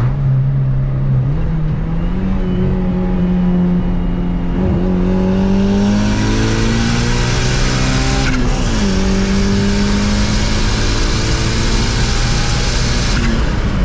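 Turbocharged Honda F20B four-cylinder at full throttle on 9 psi of boost, revs climbing steadily through one gear, dropping sharply with a quick upshift about eight seconds in, then climbing again in the next gear. A loud rushing hiss joins about six seconds in and cuts off near the end.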